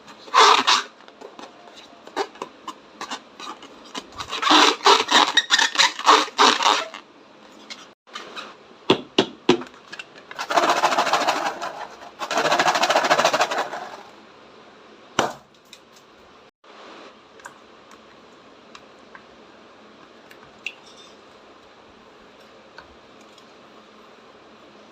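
Slime being mixed and squished by hand: bursts of crackling, sticky clicks, then two longer stretches of squelching and rubbing about ten seconds in, with only faint hiss over the last ten seconds.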